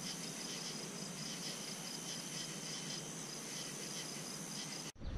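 Night insect chorus: crickets chirping steadily in a few high tones, one of them pulsing, over an even hiss. It cuts off abruptly near the end.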